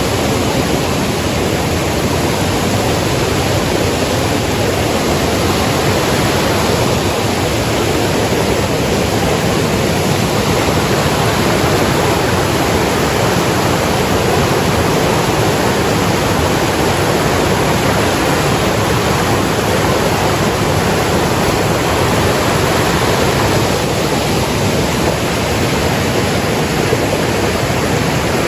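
Mountain stream in spate rushing and crashing down a rocky gorge, a loud steady roar of water, swollen from heavy rain.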